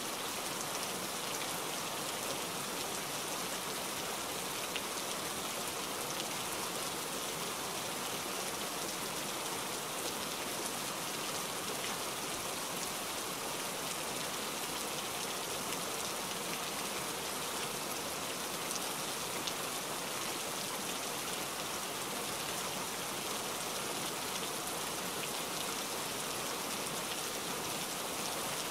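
Steady rain falling, an even hiss that neither rises nor falls.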